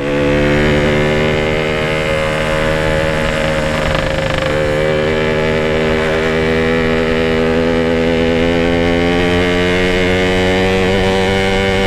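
Yamaha RX-King's 135 cc two-stroke single-cylinder engine running at a steady cruising speed while being ridden, its note holding nearly level throughout.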